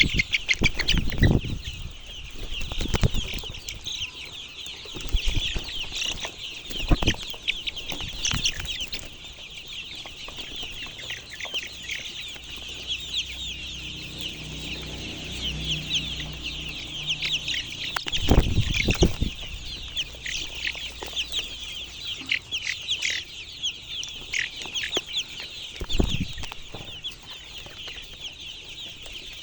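A flock of chickens calling continuously in a dense chatter of short, high calls. A few dull thumps stand out, the loudest just past the middle.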